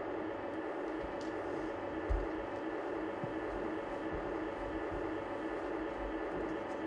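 Steady hum and hiss, with one soft low thump about two seconds in.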